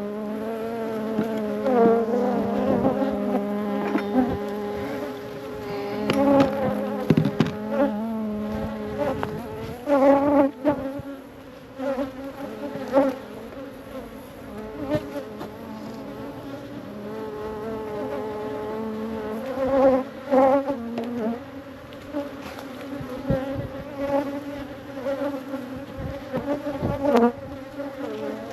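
Honeybees buzzing around an open hive, many wingbeat tones overlapping and wavering in pitch as bees fly close past. A few short knocks come through here and there.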